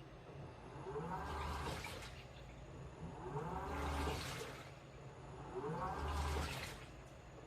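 Washing machine in its wash cycle: water sloshing and splashing in the turning drum, swelling about every two seconds along with a low motor hum and a brief rising whine each time the drum turns.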